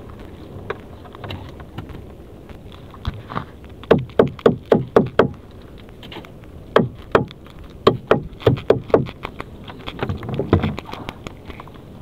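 Nylon gill net being worked by gloved hands to free a spiny lobster: rustling with bursts of quick, sharp taps and knocks, the busiest run about four seconds in.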